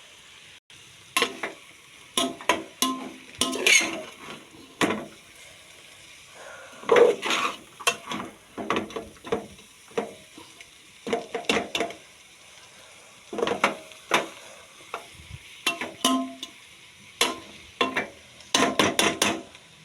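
Chow mein being stirred and tossed in a hot pan: a utensil scraping and clattering against the pan in irregular strokes, over a faint steady sizzle.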